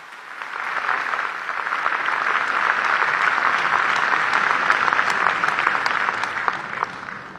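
A large audience applauding, building up over the first second or so, holding steady, then fading away near the end.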